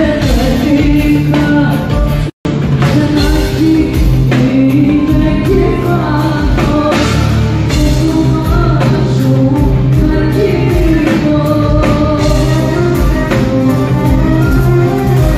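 Loud live band music with a woman singing into a microphone. The sound cuts out completely for a split second about two seconds in.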